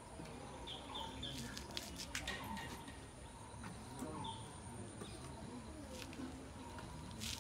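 Outdoor ambience with a bird chirping in short high notes, three quick ones about a second in and another about four seconds in, with a few sharp knocks.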